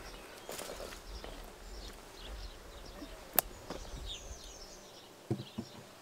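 A wooden hive cover knocking twice against the wooden hive box as it is set down near the end, after a single sharp click midway. Small birds chirp in the background, with a low rumble of wind on the microphone.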